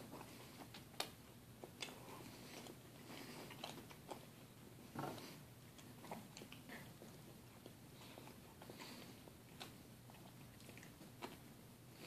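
Faint chewing and scattered mouth clicks from asparagus spears being gnawed and eaten, with a few slightly louder clicks.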